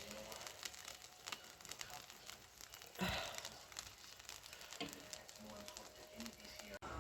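Faint rustling and scattered light clicks, with a brief louder rustle about three seconds in.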